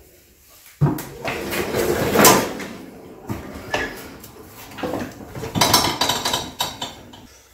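A Toro TimeMaster walk-behind mower being tipped up onto its back end, its plastic and metal body clattering and knocking in two bouts, about a second in and again near six seconds.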